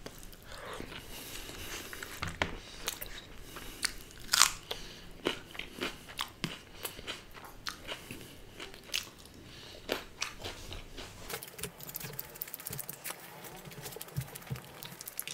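A person chewing and eating close to the microphone, with irregular wet mouth clicks and smacks and a few louder bites.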